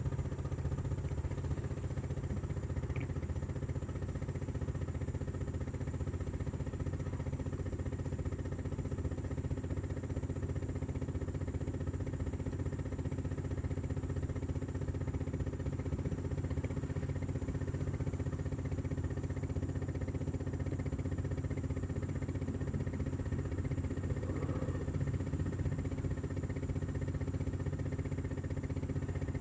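Steady low mechanical hum that holds at one level throughout.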